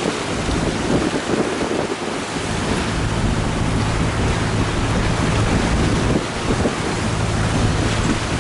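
Wind buffeting the microphone over the rush of choppy sea water, with the steady drone of a boat's engine underneath.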